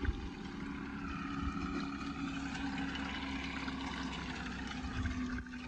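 A motor or engine running steadily with a constant low hum.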